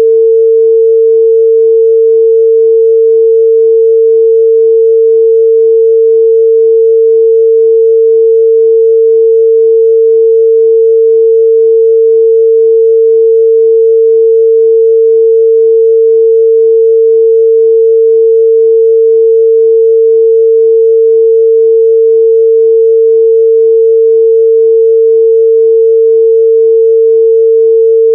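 A steady, loud 451 Hz sine-wave test tone, one pure pitch held without change.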